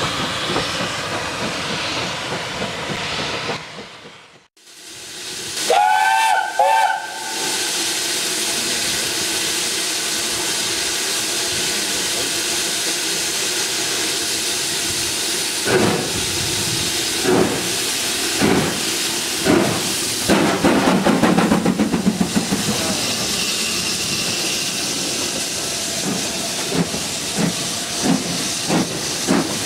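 A train of coaches rumbles away. After a brief gap a steam whistle gives two short blasts. Then BR Standard Class 7 'Britannia' 4-6-2 no. 70000 approaches with a steady hiss of steam from around its cylinders and spaced exhaust beats that come closer together as it draws level.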